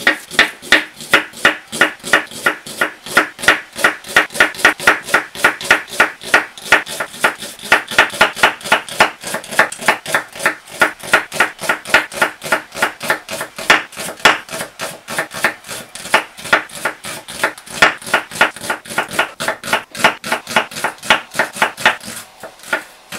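Chef's knife slicing a green onion on a zelkova hardwood cutting board: a steady run of sharp knife strikes on the wood, about four to five a second, with a brief pause near the end.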